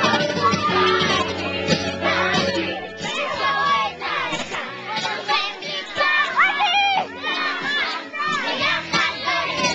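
Party music playing with a group of children shouting and singing. The music's bass drops away about three seconds in, leaving mostly the children's high voices.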